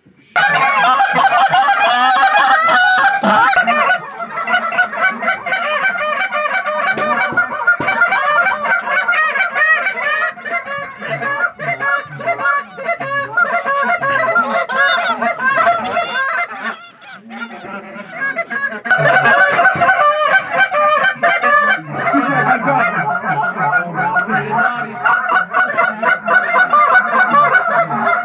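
A large flock of Canada geese honking, many overlapping calls at once, with a brief lull about two-thirds of the way through.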